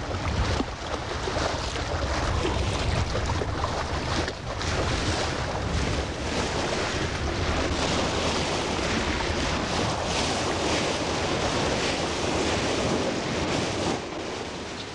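Sea water rushing and splashing against the bow of a moving sailing schooner, with wind buffeting the microphone. The sound drops quieter near the end.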